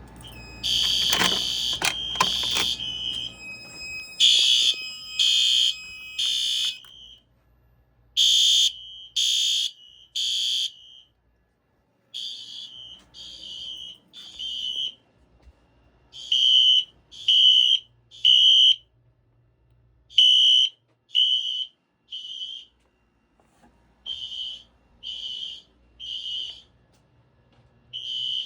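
Fire alarm system in alarm after a T-bar pull station is pulled: a few clicks near the start, then a high electronic sounder beeping in the temporal-three evacuation pattern, three beeps then a pause, over and over.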